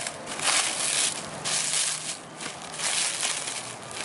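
Clear plastic bag crinkling and rustling in irregular crackly bursts as it is pulled open and handled.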